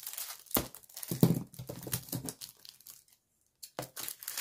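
Cellophane wrap crinkling and tearing as it is handled on plastic pill-organizer boxes, with a brief stop about three seconds in.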